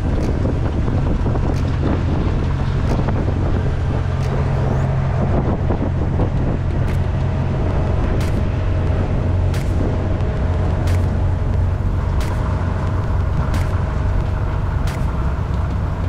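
Semi truck running steadily down the road: a constant low engine drone with road noise. From about halfway through, faint ticks repeat about every second and a half.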